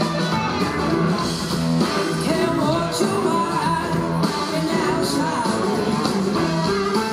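Live blues-rock band playing loudly: two electric guitars over bass and drums, with a woman singing into the microphone.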